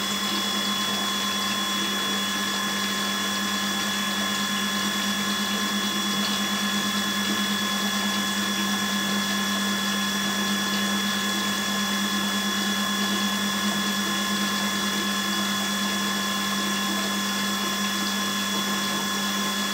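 Electric pump of a radiator-flushing machine running steadily with a constant hum, while sludge-blackened flush water pours from the discharge hose into a toilet bowl.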